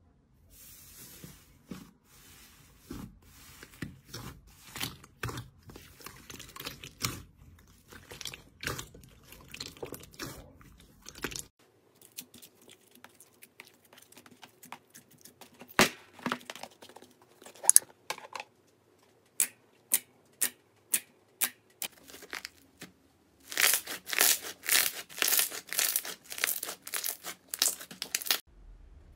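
Hands poking, pulling and pressing slime, giving crackling and clicking sounds: soft dense crackling at first, then a string of separate sharp pops from about twelve seconds in, and a loud stretch of dense crackling near the end.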